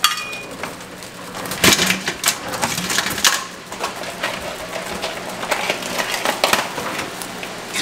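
Cleaned blue crabs being handled and dropped into an aluminium CanCooker pot: irregular clicks and knocks of shell on shell and on metal, with a sharper knock about a second and a half in.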